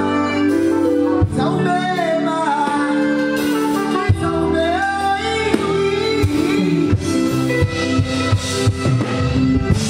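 A band plays music with singing over it: sung melody above guitar, bass and drums, as in a stage sound check.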